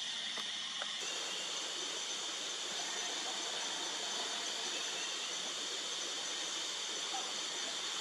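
Steady high hiss of rainforest ambience, an even insect drone with no distinct calls; the hornbills are silent.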